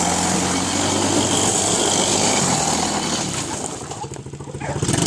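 ATV engine running steadily; the sound drops away for about a second near the end, then comes back up.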